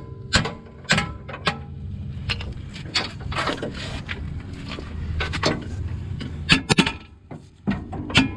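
Hand-tool work on a car's rack-and-pinion steering during its removal: scattered sharp metal clanks with scraping and rattling in between.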